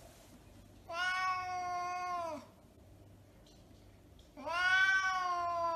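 A cat meowing twice: two long, drawn-out meows of about a second and a half each, a couple of seconds apart, each dropping in pitch at its end; the second is the louder.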